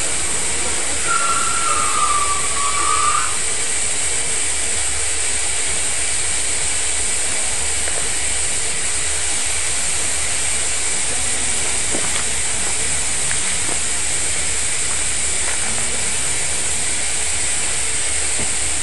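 Steam hissing steadily from a standing train hauled by LMS Black Five steam locomotive 45407. A short wavering whistle-like tone sounds for about two seconds near the start.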